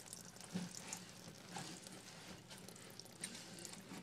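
Faint crackling with scattered small clicks and knocks: hands and a wrench working the plastic nut off under a toilet fill valve.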